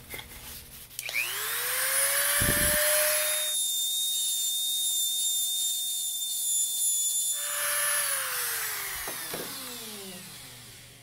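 Handheld rotary tool switching on about a second in and whining up to speed. It runs at a steady high pitch while engraving the steel hammerhead, then is switched off and spins down with a falling whine near the end.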